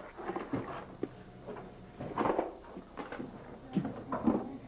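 Irregular scuffing and knocking of people clambering over wet, slippery rocks, with a louder scrape about two seconds in and another near the end.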